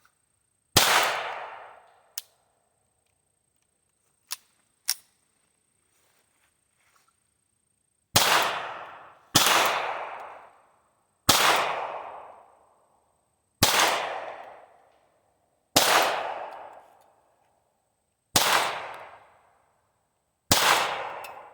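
Ruger Mark IV Target .22 LR semi-automatic pistol fired slowly: one shot, then after a pause seven more spaced a second or two apart, each with an echo fading over a second or two. A few faint clicks fall between the first and second shots.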